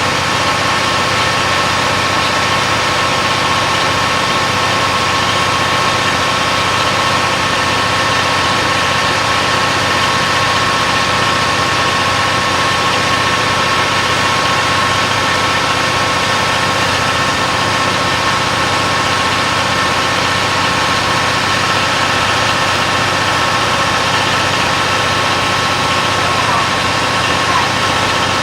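JNR KiHa 181 series diesel railcar's DML30HSC engines idling steadily at a standstill, with a steady high-pitched whine running over the engine noise.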